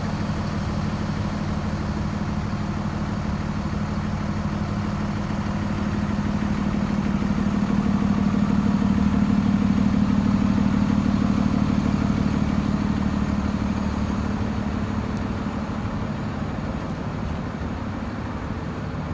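2019 International MV rollback truck's Cummins diesel engine idling steadily. It grows louder about a third of the way in, then fades again toward the end.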